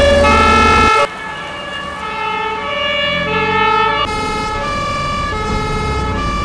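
Fire engine's German two-tone siren (Martinshorn) on an emergency run, alternating a high and a low note. A deep engine rumble under it stops abruptly about a second in; the siren drops in level, then grows louder again.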